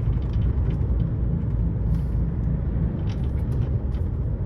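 Steady low rumble of a lorry's engine and road noise, heard from inside the cab while driving.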